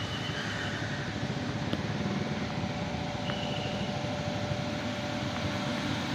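Medium bus's diesel engine pulling up a steep climb in low gear, a steady drone with no change in pitch.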